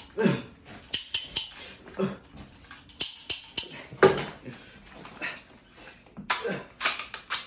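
Airsoft guns firing: sharp snaps, often in quick groups of two or three, with short falling voice-like grunts in between.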